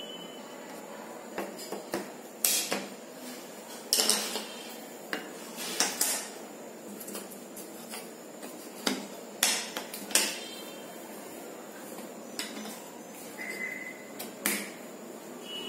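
Wooden jigsaw puzzle pieces knocking and clacking against the wooden puzzle board, in irregular sharp knocks, some in quick pairs.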